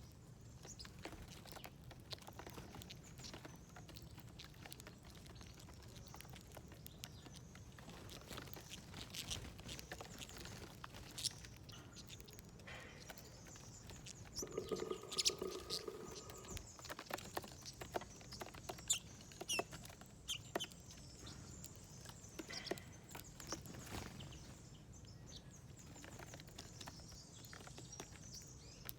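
Small birds pecking and picking at seed on a feeder plate: scattered irregular taps, with a few short chirps in the second half and a brief low tone about halfway through.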